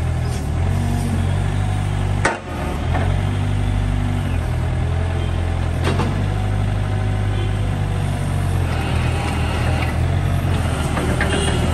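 Mitsubishi ME30 mini excavator's diesel engine running steadily while the hydraulics swing and lift the boom and bucket. A sharp knock comes about two seconds in and another around six seconds.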